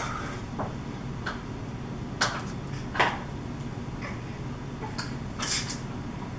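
Short clinks and knocks of a glass mixing bowl and utensils while cake batter is poured into paper liners in a metal muffin tin: about six separate clinks, the sharpest about three seconds in.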